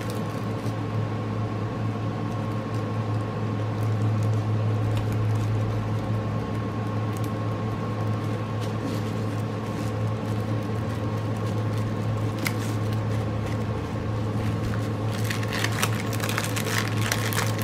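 A steady low hum fills the room, with a few light clicks and, near the end, plastic crinkling as small bags of diamond-painting drills are handled and put back in their container.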